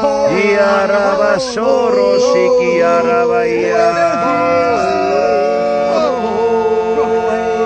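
Several voices sounding long wordless, chant-like tones over one another, some held steady and some sliding and wavering in pitch.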